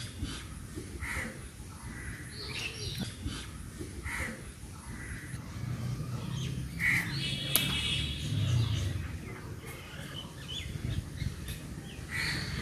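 Outdoor ambience: birds call a few times, short calls spaced some seconds apart, over a steady low rumble, with one sharp click a little past the middle.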